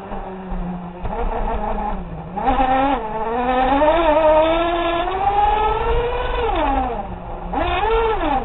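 Radio-controlled car's motor heard from on board the car: a steady hum at first, then rising in pitch as it speeds up from about two seconds in, dropping briefly about seven seconds in and revving up again near the end.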